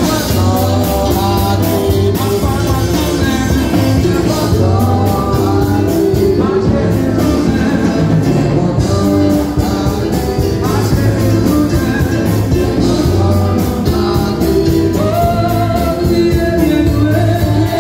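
Live gospel worship singing: lead singers on microphones and the congregation singing together, over an electric keyboard and a steady beat.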